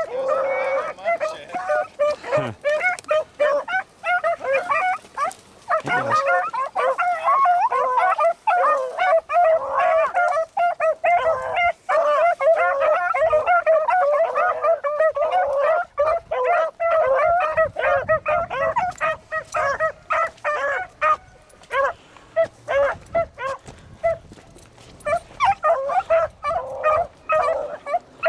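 A pack of beagles baying on a rabbit's scent trail: many overlapping yelping, howling hound voices giving tongue as they run the track. The chorus thins out past two-thirds of the way through and swells again near the end.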